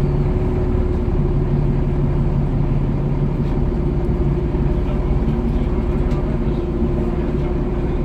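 Volvo B7TL double-decker bus's six-cylinder diesel engine running, heard from inside the passenger saloon as a steady drone with a constant low pitch.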